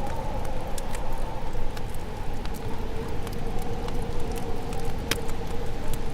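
Wood fire crackling: scattered sharp pops and snaps over a steady low rush, with one sharper pop about five seconds in.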